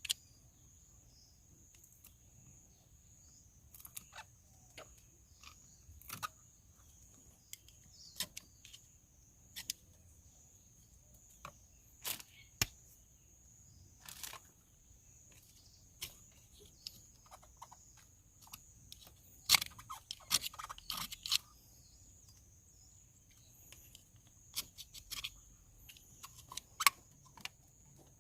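Scattered clicks, taps and scrapes of hand work on parts and tools, with a busier cluster about twenty seconds in, over a faint steady high-pitched tone.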